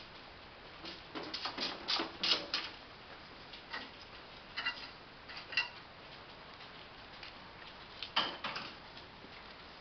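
Scattered light clicks and taps, several in quick succession about a second in, a few more through the middle, and a last cluster near the end, over a faint steady hiss.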